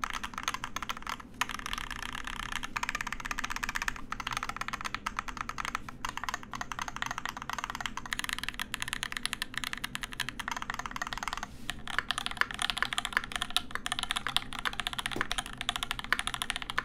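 Typing on a Volt-80 mechanical keyboard fitted with lubed Durock L7 linear switches and GMK keycaps: a dense, continuous stream of keystrokes, with a short lull about eleven and a half seconds in.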